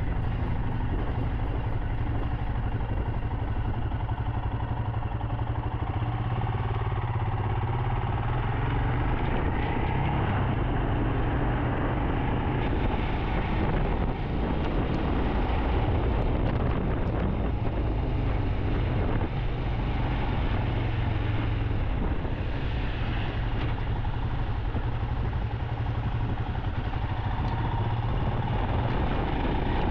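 Royal Enfield Himalayan's single-cylinder engine running at low town speed, its note shifting a little with the throttle, over a steady hiss of tyres on wet pavement.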